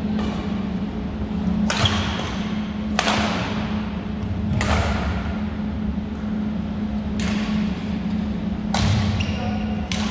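Badminton rackets striking a shuttlecock in a rally: five sharp hits, one to two and a half seconds apart, each echoing in a large hall, over a steady low hum.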